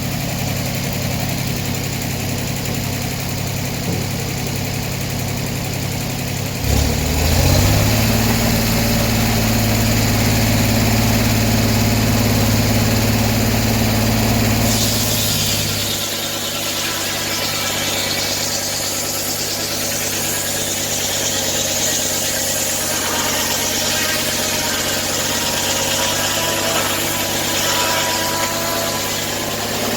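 Sawmill engine running steadily, then revving up about seven seconds in. About halfway through, a hissing cutting noise rises as the engine's pitch drops, as the blade works through an oak log.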